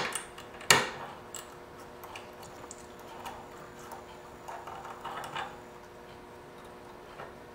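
Small metal-on-metal clicks and ticks of a punch working the factory extractor out of a Remington 700 bolt face: two sharp clicks in the first second, then lighter scattered ticks.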